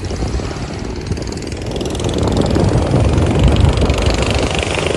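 A motor engine running and growing louder over the last few seconds, mixed with rumbling wind or surf noise.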